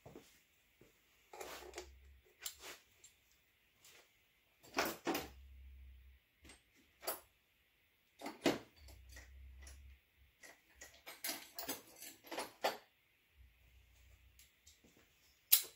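Irregular metallic clicks and knocks of a gear wrench and hand tools on intake manifold bolts, with a few louder clanks and a quick run of clicks a little past the middle.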